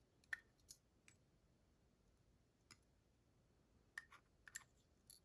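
Faint, irregular small metal clicks from handling the pins and parts of a disassembled lock cylinder, about seven light ticks spread over a few seconds with near silence between them.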